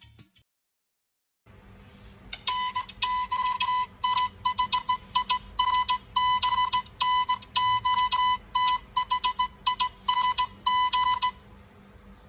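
Mobile phone ringtone made of short electronic beeps, all on one pitch, in quick rhythmic groups over a faint hum. It starts about two seconds in and stops shortly before the end.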